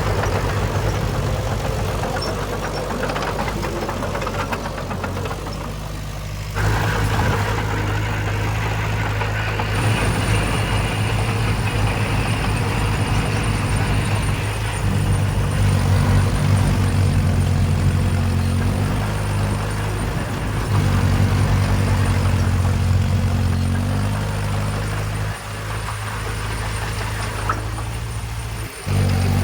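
Diesel engine of heavy earthmoving equipment running steadily, working harder for stretches with a deeper, louder note. The sound changes abruptly about six seconds in and again near the end.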